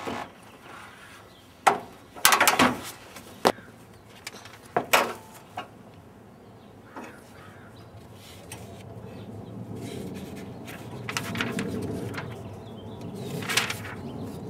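Scattered sharp knocks and clanks of hand tools and parts being handled during an engine teardown, bunched in the first five seconds with a few more near the end. A low background rumble grows louder in the second half.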